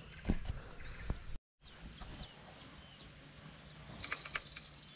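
Steady high-pitched insect chorus, with a few faint short chirps and light knocks and clicks. The sound cuts out completely for a moment about a second and a half in.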